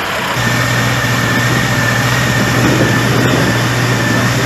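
Tractor engine running steadily at low revs, with a thin steady whine over it, both coming in about half a second in.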